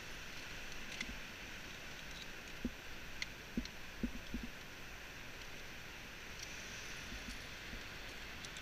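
Steady rushing outdoor noise with a few soft knocks and clicks of climbing gear and rope being handled, most of them between about one and four and a half seconds in.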